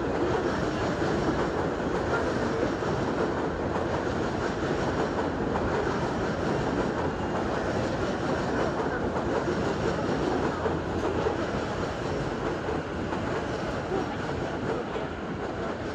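Seibu Line electric train pulling away along the station tracks: a steady rumble of wheels on rail that eases off slightly near the end.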